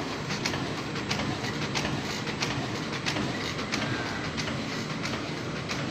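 Roll-to-sheet paper cutting machine running: a steady mechanical noise with a regular sharp clack about every two-thirds of a second.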